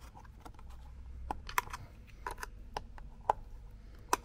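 Small screwdriver prying at the plastic clips and locking tab of a car's fuse box cover: a string of irregular small clicks and taps, the sharpest ones about a second and a half in, just past three seconds and near the end.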